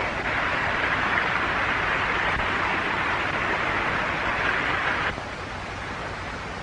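Steady rushing hiss that drops sharply to a quieter hiss about five seconds in.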